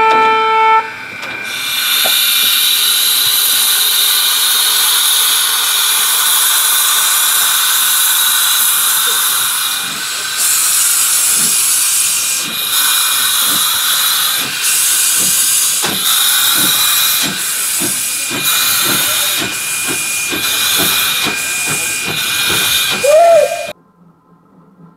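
Steam locomotive 423.009 gives a short whistle note that ends in the first second, then steam hisses loudly from around its cylinders. From about ten seconds in the hiss breaks into puffs with the exhaust beats, quickening to about two a second as the engine pulls away, until the sound cuts off near the end.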